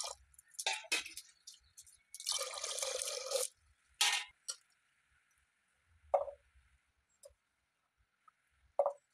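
Water poured from a glass into a pressure cooker over washed dal: a short splash at the start, then a second pour lasting about a second. After that a few drips and plops from a wet hand dipping into the water.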